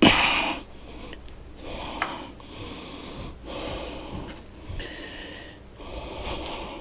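Manual foot pump inflating a tire: about six strokes, roughly one a second, each pushing air through with a short wheezing hiss. The first stroke is the loudest.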